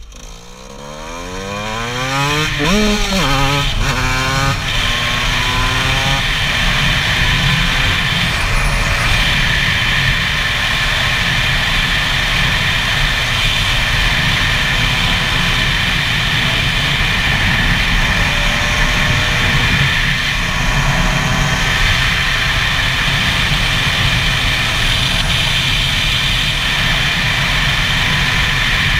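2009 Gas Gas EC SMR 125's single-cylinder two-stroke engine pulling away and revving up through the gears, the pitch climbing in several rising sweeps over the first few seconds. It then holds a steady, high-revving cruise.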